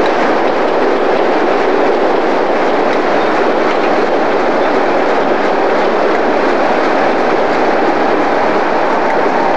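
British Rail Class 101/108 first-generation diesel multiple unit running along the platform, giving a steady, loud rumble of diesel engines and wheels on rail.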